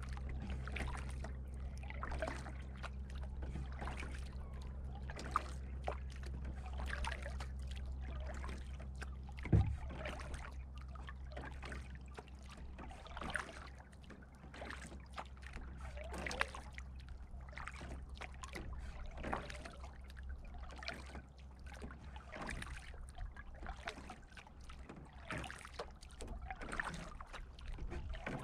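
Canoe paddling on calm water: the paddle dipping and water splashing and trickling off the blade at irregular intervals, with one sharp knock about a third of the way in. A low steady hum fades out around the middle.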